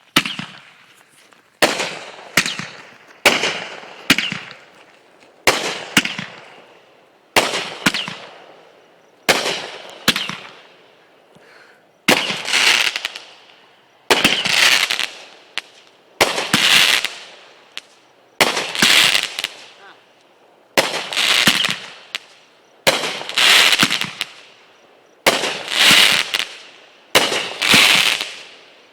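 Consumer fireworks cake firing shot after shot, about one every one and a half to two seconds: each a sharp crack followed by a crackling fade.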